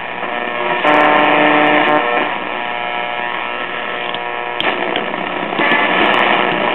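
1936 RCA Victor 5T1 tube radio being tuned across the AM broadcast band, its speaker giving loud static and hiss as the dial passes between stations. About a second in there is a brief held tone with overtones, and a few sharp clicks come later.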